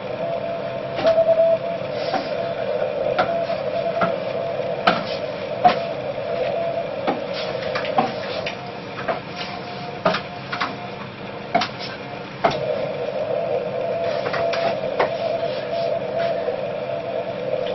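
Irregular clicking of a laptop keyboard being typed on, over the steady, narrow hiss of an amateur radio transceiver's receiver with no voice coming through. A short steady tone sounds from the receiver about a second in.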